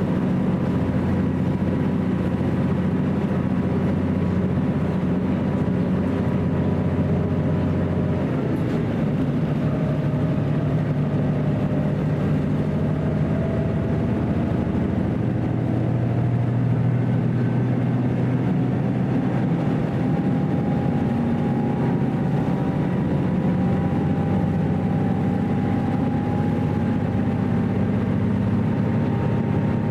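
Running noise heard inside a JR Central KiHa 75 diesel railcar under way: a steady diesel engine drone whose pitch shifts about eight seconds in and again around fifteen seconds, with a faint whine that slowly rises through the second half.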